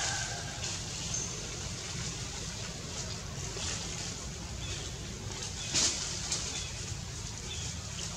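Steady wind rumble and hiss on the microphone, with two brief clicks about six seconds in.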